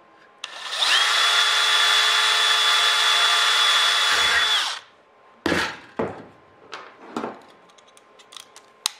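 Cordless drill spinning up and running at a steady whine for about four seconds while drilling through an aluminium wing spar and attachment angle, then stopping. After it, a few short clicks and knocks of small metal parts, clecos and cleco pliers, being handled.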